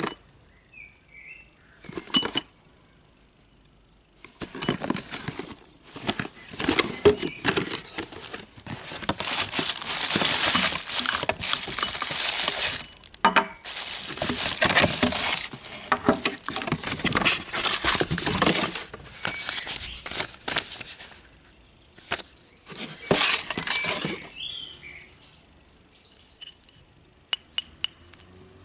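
Plastic wrapping crinkling and a cardboard box being handled as a spinning reel is unpacked: long stretches of dense crackly rustling, broken by short pauses, then scattered light clicks near the end.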